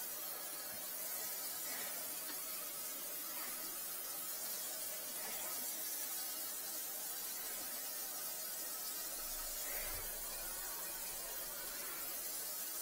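Steady hiss of tap water running down a freshly cleaned sink drain, with a few faint handling knocks.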